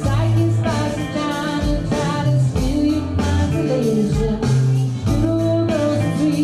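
Live duo playing a song: a singer's voice over guitar and bass guitar. The music jumps louder right at the start.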